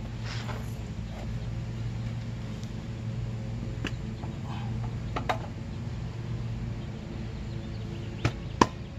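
Sharp metal knocks and clinks as the rear wheel is rocked by hand to line up the final-drive spline and seat the axle. There are a few scattered knocks and two louder ones close together near the end, over a steady low hum.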